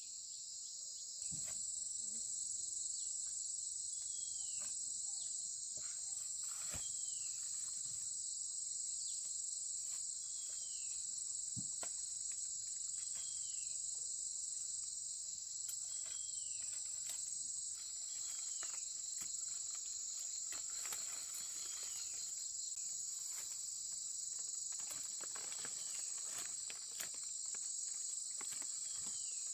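A steady, shrill outdoor insect chorus that grows a little louder about a second in. Through it, a short falling whistle repeats about every three seconds, with scattered light clicks.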